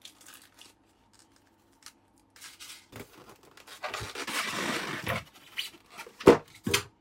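Packaging being handled: a foam insert scrapes and slides out of the box with rustling, then two sharp knocks near the end as the foam and the plastic tray beneath are handled.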